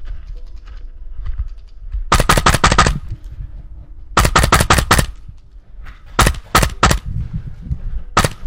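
Gas-blowback airsoft rifle running on an HPA adapter, firing short rapid bursts. Each shot is a sharp crack of the cycling bolt. There are four bursts about two seconds apart, and the third is more spaced out.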